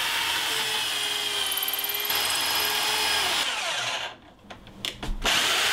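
Power drill boring a bolt hole through a stack of wooden boards, its motor whining steadily, then winding down about three and a half seconds in as the bit is pulled out. After a few clicks the drill starts up again near the end.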